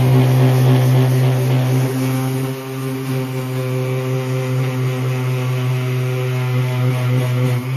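Electric sanding tool running steadily with a constant motor hum as it sands a flat patch on a plastic portable fuel tank. The sound drops a little about two and a half seconds in, then comes back up near the end.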